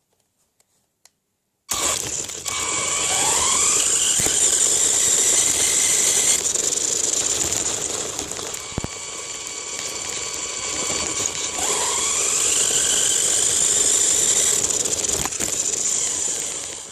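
Radio-controlled car's motor whining, starting suddenly about two seconds in, with a steady high whine and twice a rising whine as it speeds up, then cutting off near the end.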